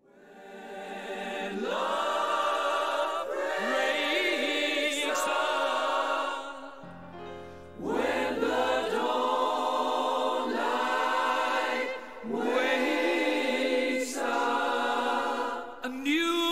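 Background music of a choir singing long, wavering held notes in phrases of a few seconds, fading in from silence at the start.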